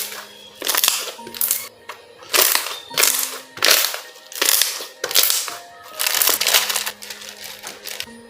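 Clear slime being squeezed and poked by hand: a run of crackly, squishy pops as air pockets burst, about one every half second to second. Soft background music with held low notes plays under it.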